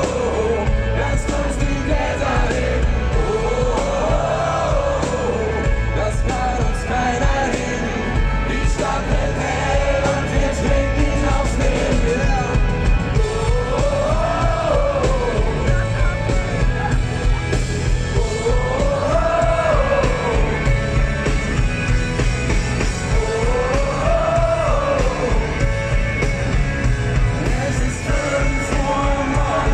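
Live pop-rock band playing with singing, heard from inside a concert crowd. A sung melody rises and falls in repeated phrases about every five seconds over a steady band accompaniment.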